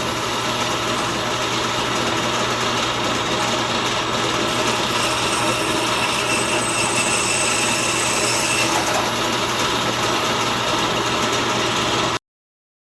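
Band saw running and cutting walnut letter blanks: a steady machine whine and blade noise that shifts slightly as the cut goes on, then cuts off suddenly near the end.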